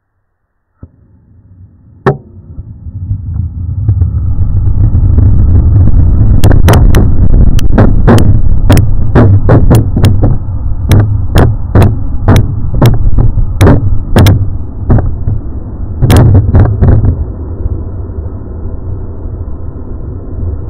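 Model rocket engine lighting with a sharp crack, then burning with a loud, steady roar that builds over a few seconds. A rapid string of sharp cracks runs through the middle of the burn, and the roar dies away over the last few seconds.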